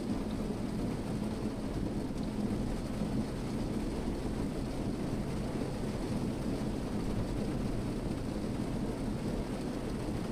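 Steady rain drumming on a car's roof, heard from inside the car as a low, even rumble.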